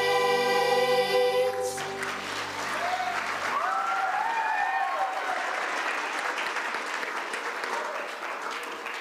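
A children's choir with accompaniment holds the final chord of a song, which cuts off about one and a half seconds in. Audience applause follows and slowly fades.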